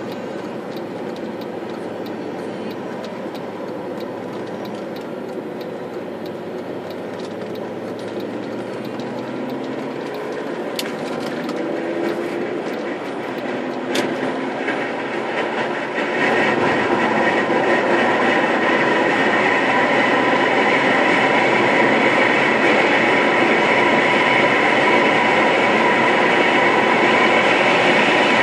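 Inside an Audi A4 Avant TDI diesel car pulling away and accelerating: the engine note rises in pitch through the gears, then a little past halfway a louder, steady road and tyre noise takes over as the car reaches speed.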